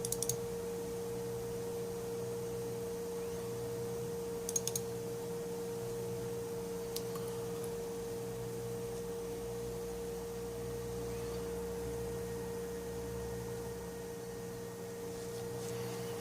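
Steady electrical hum, with a few computer mouse clicks: one near the start, a quick run of clicks about four and a half seconds in, and another near seven seconds.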